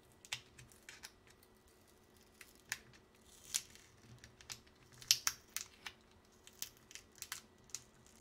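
Faint, irregular small clicks and crinkling scratches, with a few louder ones around the middle, as a green insulating paper end cap is pried up and peeled off the ends of 18650 lithium-ion cells.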